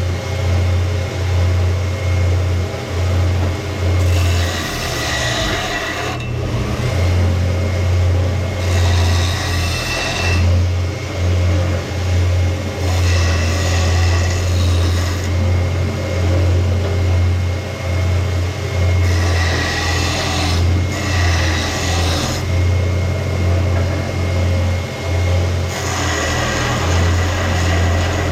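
Old electric motor driving a sanding abrasive, running with a steady low hum, while a steel axe head is pressed against it in five passes of a few seconds each, each pass adding a harsh grinding hiss as the blade is reshaped.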